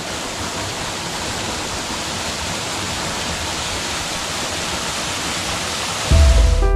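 A waterfall with a drop of about 20 metres, its water falling down a rock face into a pool with a steady, even rush. About six seconds in, music starts over it with low bass and held notes, louder than the water.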